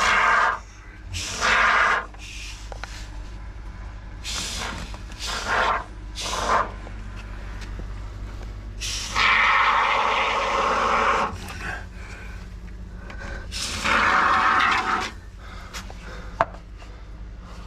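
Can of expanding-foam gap filler spraying in bursts of hiss: several short squirts, then two longer ones of about two seconds each. A single sharp click comes near the end.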